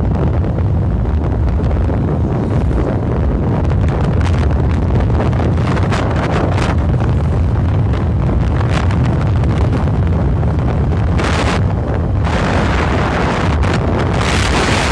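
Wind buffeting the microphone of a moving vehicle as it drives along a road: a steady low rumble, with brighter hissing gusts about eleven seconds in and again over the last couple of seconds.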